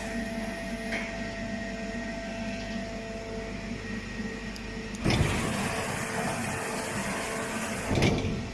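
CNC vertical machining center running: a steady motor hum with a few steady tones, joined about five seconds in by a louder rushing noise that swells again near the end.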